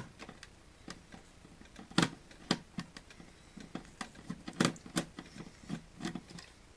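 Irregular clicks and light taps of a screwdriver working a screw loose from a plastic electronics housing, the sharpest click about two seconds in and another near the middle.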